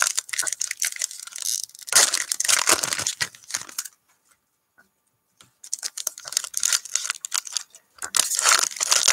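Foil wrapper of a Panini NBA Hoops trading-card pack crinkling and tearing as it is ripped open. It goes in two spells with a short quiet gap a little before the middle.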